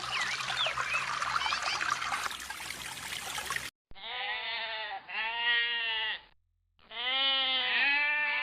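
Birds chirping over a steady rush of water. After a hard cut comes a run of long, wavering bleats, two close together and then more after a short pause.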